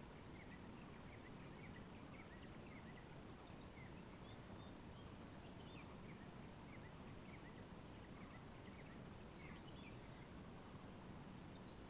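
Faint chirping of small birds: many short, high chirps scattered through, over a steady low background noise.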